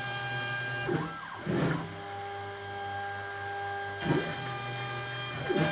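Hobby CNC router engraving lettering into a board: a steady whine from the spindle, with the stepper motors' whines rising and falling in pitch as the axes speed up and slow down, about a second in, again at about four seconds and near the end.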